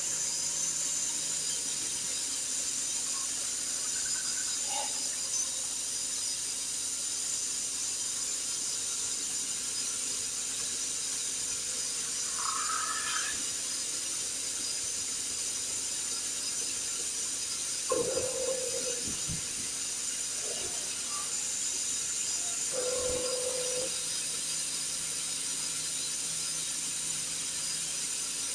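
Double-head horizontal sanding machine running steadily with a high hiss. A few short pitched squeaks or tones rise briefly over it partway through.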